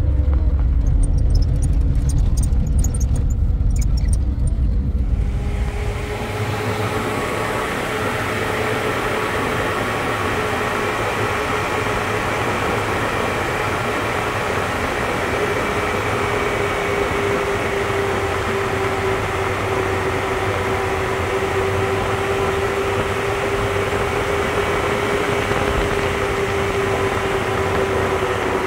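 A motor vehicle's engine running steadily. A heavy low rumble in the first few seconds gives way, about six seconds in, to a steadier hum with a faint held tone.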